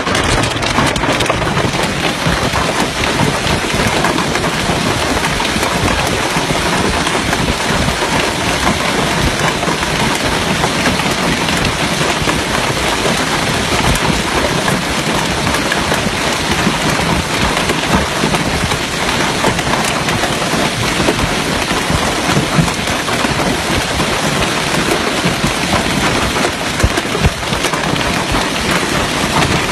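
Heavy hailstorm: hailstones pelting the ground in a loud, dense, steady patter of countless small impacts.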